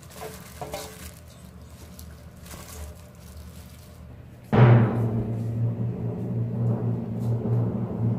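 Faint clicks and rustles of a plastic-gloved hand tossing syrup-coated corn fritters in a stainless steel bowl. About four and a half seconds in, background music starts suddenly with a strong low bass and is the loudest sound.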